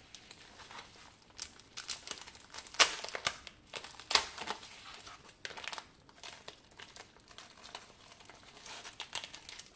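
Folded white plastic wrapping handled and unfolded by hand: irregular crinkling and crackling, with the loudest crackles a little under three seconds and a little over four seconds in.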